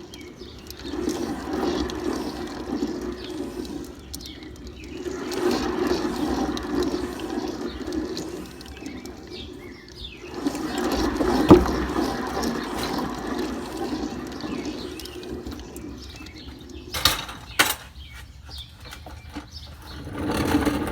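Chevrolet 10-bolt rear end droning while the vehicle drives, the hum swelling and fading in several waves: the noise of a faulty, noisy rear end. Two sharp clicks come about three quarters of the way through.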